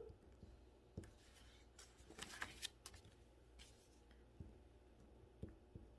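Near silence with faint scratching of writing on paper, strongest about two seconds in, and a few light taps.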